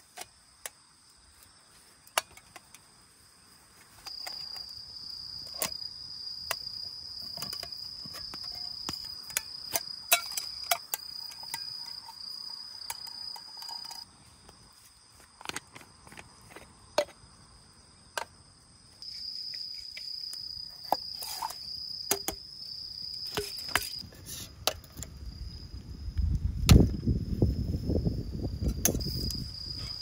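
A steady high-pitched insect trill that stops and starts several times, over the crackle and pop of a wood campfire. Near the end comes a louder low rushing sound with a sharp knock.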